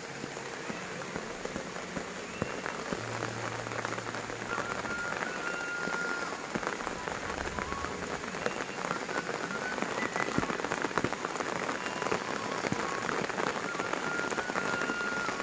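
Heavy rain falling steadily, with many separate drops striking; it grows somewhat louder about ten seconds in.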